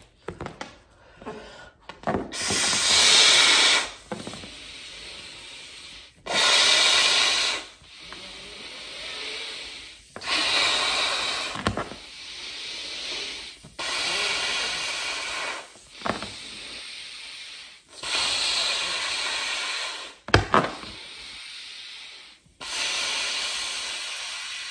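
A man blowing hard into a rubber glove to inflate it by mouth: six long rushes of breath, each about two seconds, with quieter inhales between. A sharp click cuts in twice, about halfway and again later.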